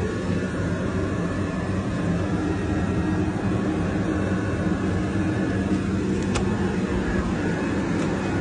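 A steady low mechanical hum with a wash of noise behind it, and a faint sharp click a little past six seconds.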